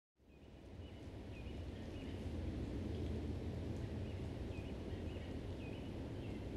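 Outdoor ambience fading in from silence over about two seconds: a low steady rumble with a bird's short chirps repeating throughout.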